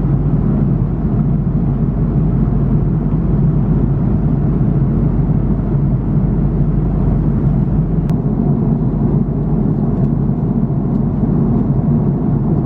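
Steady low rumble of cabin noise inside an Airbus A330-300 airliner, holding even throughout.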